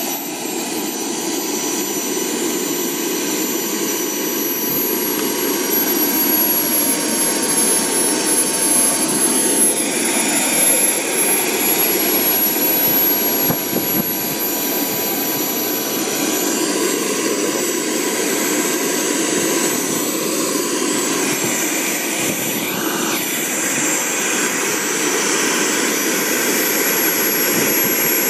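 Small model gas turbine running steadily: a continuous rush with thin high whining tones, which dip slightly in pitch over the first several seconds and then hold.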